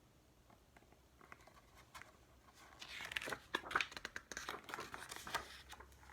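Paper rustling and crinkling as a picture book's pages are handled and turned: a few faint ticks at first, then a busier stretch of crackling from about halfway in.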